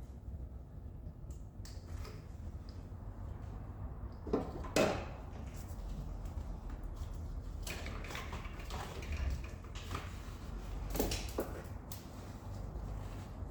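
Workshop handling sounds: a few short knocks and scrapes, two close together about four to five seconds in and a pair near the end, over a low steady hum.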